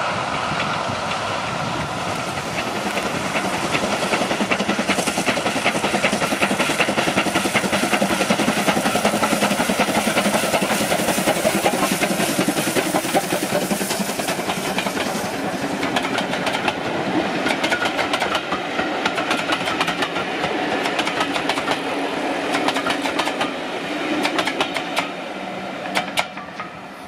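Steam locomotive hauling coaches passes close by at speed. It chuffs with a hiss of steam as it comes near, then the coaches' wheels clatter rapidly over the rail joints as they go by. The sound drops away near the end as the last coach passes.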